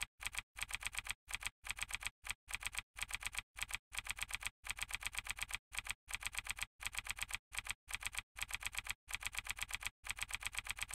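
Typing sound effect: quick, identical key clicks in short runs broken by brief pauses, keeping time with text being typed out on screen.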